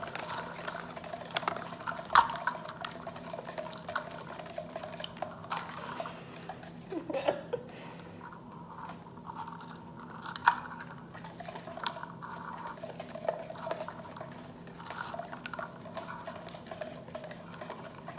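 A spoon stirring an ice cream mix of milk, half-and-half and sugar in a plastic cup, with irregular light clinks and scrapes against the cup. There is a sharper clink about two seconds in and another about ten seconds in.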